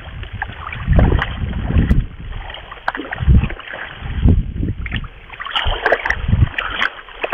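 Hooked sea bass thrashing and splashing at the water's surface, in irregular bursts with low thumps about every second.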